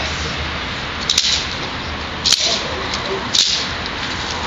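Three sharp slapping cracks, spaced about a second apart, from a training stick striking during protection bite work with a German shepherd.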